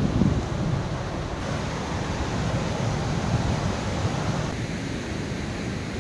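Steady rushing of a fast mountain river's white-water rapids, with wind buffeting the microphone near the start.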